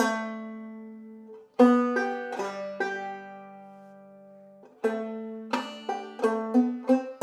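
Clawhammer five-string banjo played solo. A few notes and a chord are struck and left to ring out for a couple of seconds, then steady rhythmic picking resumes about five seconds in.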